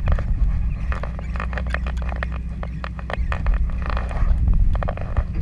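Conventional saltwater fishing reel being worked by hand, giving a rapid, uneven run of sharp clicks over a steady low rumble.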